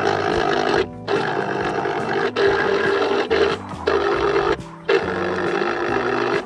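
Sogo SS-5130 electric citrus juicer's 40 W motor running under load as orange halves are pressed down onto its spinning reamer. It stops briefly four or five times as the hand eases off between presses.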